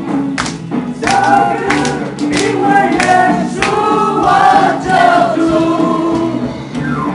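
A man singing a pop song into a microphone over amplified backing music with a sharp, regular beat.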